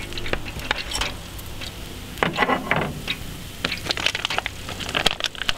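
Steel grill tongs clacking as a rack of spareribs is lifted off the Beefer's grate and set down on a wooden board, with hot fat crackling on the freshly grilled meat.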